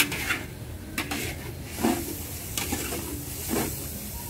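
A metal spatula scraping and stirring a yellow mixture frying in oil in a large metal wok, in irregular strokes about two a second, with a faint sizzle underneath.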